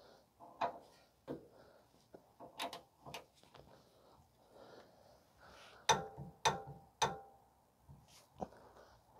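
Metal hand tools working on a rear shock bolt: scattered light clicks and knocks, then three sharp, ringing metallic clicks about half a second apart.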